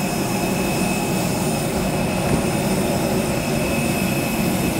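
Jet aircraft noise close by an airliner: a steady roar with thin high whines held over it, unchanging throughout.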